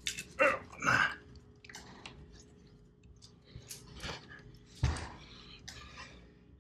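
Sea-Doo Spark engine being turned over by hand on the bench: a string of short, irregular knocks and scrapes, the loudest a dull thump about five seconds in.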